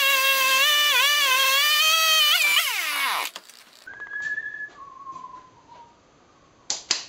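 A handheld electric power tool's motor whining at high speed, its pitch dipping briefly as it is loaded against the wood, then switched off and winding down with a steeply falling pitch. Later there is a single sharp knock.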